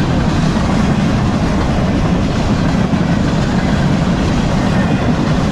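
Freight train boxcars rolling slowly past close by: a steady, loud rumble and clatter of steel wheels on rail.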